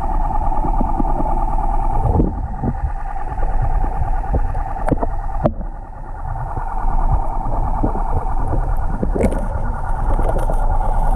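Underwater recording: a steady motor hum carried through the water, over a low muffled rumble with scattered dull knocks from the submerged camera.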